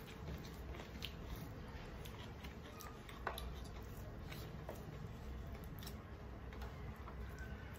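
Eating sounds: fingers mixing and squishing rice and curry on plastic plates, with chewing and mouth noises, heard as many small, scattered clicks and smacks.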